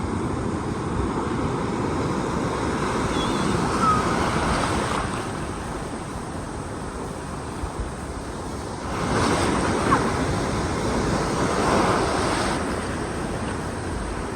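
Ocean surf washing onto a beach, with wind buffeting the microphone. The surf swells louder twice, about three seconds in and again about nine seconds in, as waves break.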